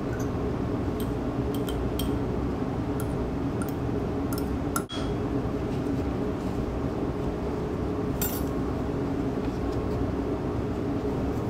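Metal spatula clinking and scraping against a small glass beaker as tomato paste is scooped out: several light clinks over the first half, over a steady low hum. Near the end, a brief rustle of filter paper being folded.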